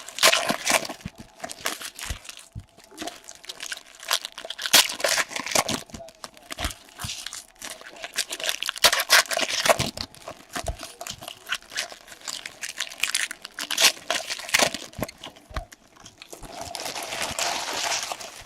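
Plastic wrapping of a trading-card box being crinkled and torn open: irregular rustling and ripping with sharp crackles, and a longer rustle near the end.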